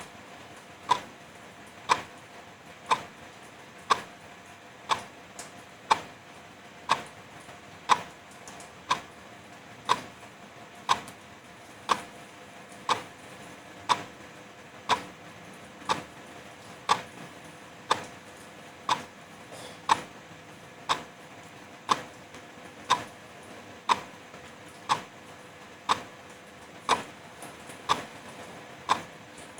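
Wall clock ticking steadily, one sharp tick a second, over a steady hiss of drizzle.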